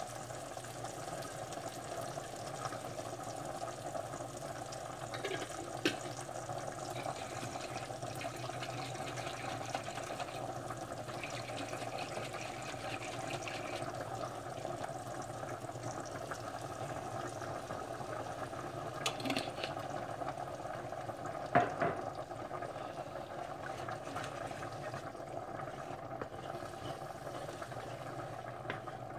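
Pasta and chicken with a little added water cooking in a pan on the stove, a steady simmering hiss, with a few light knocks against the pan.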